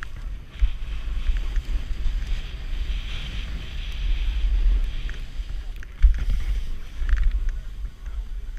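Wind buffeting the microphone of a GoPro Hero4 as a snowboard runs through deep powder, a low uneven rumble over the steady hiss of the board sliding through snow.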